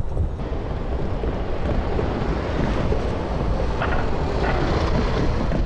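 Steady low rumble of wind on the microphone, mixed with road traffic noise.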